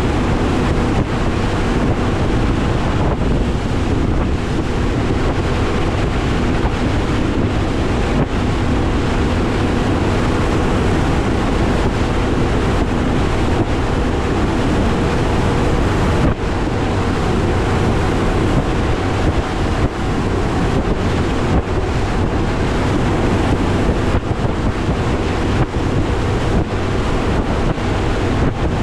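Heavy wind buffeting the microphone and water rushing against the hull of a bass boat running through rough water, with the steady drone of its Mercury Pro XS 200 outboard underneath.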